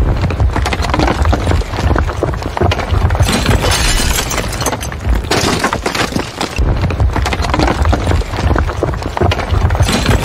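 Building-collapse sound effect: a continuous deep rumble of falling masonry with dense cracking and shattering debris. The rumble eases in the middle, where the crackle is brightest, then swells again.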